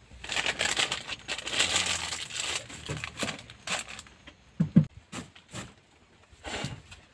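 Plastic packet crinkling and rustling as it is handled, loudest in the first three seconds, followed by scattered rustles and a couple of dull knocks on the wooden boat floor.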